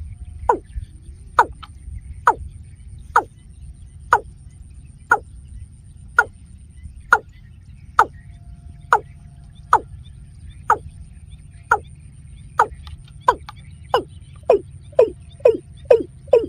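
Watercock calling: a series of short, sharp notes about once a second, quickening to about two a second near the end, over a steady low rumble.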